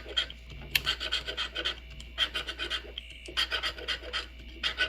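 Scratch-off lottery ticket being scraped: quick runs of short scratching strokes in about six bursts with brief pauses between.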